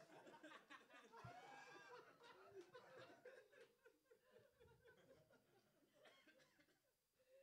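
Faint laughter and chuckles from a small audience, dying away over the second half.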